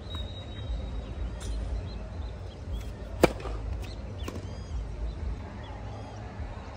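A tennis ball struck with a racket, one sharp crack about three seconds in, with a few fainter knocks before and after it over a steady low rumble.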